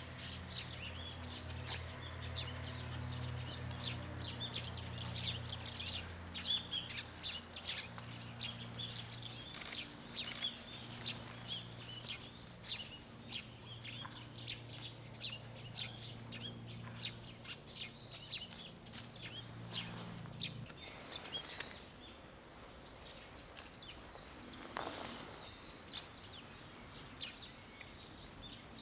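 Small birds chirping, many short high calls in quick, irregular succession, over a low steady hum that stops about twenty seconds in.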